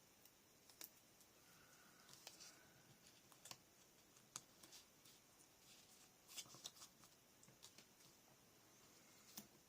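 Near silence with faint, scattered clicks and soft rustles of paper and chipboard pieces being handled and set down on a layout.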